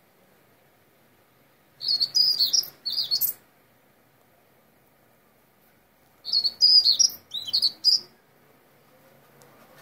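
Common starling singing: two bursts of whistled, slurred notes and clicks, each about a second and a half long, with a few seconds' pause between them.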